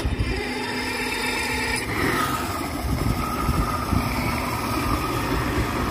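Motorboat engine running steadily, its pitch dropping a little about two seconds in.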